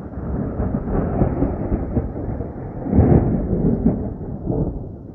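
Loud rolling thunder: a rumble that builds quickly, peaks in a sharper clap about three seconds in, then fades away.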